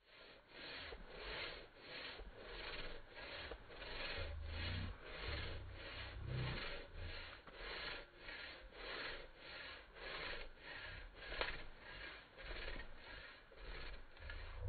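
Stocker Tornado 180 folding pruning saw cutting through a thin woody trunk, its blade going back and forth in steady strokes about two a second.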